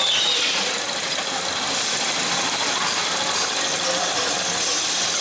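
Steady mechanical running noise with a low, even hum, like engines or motors running at a fairground ride.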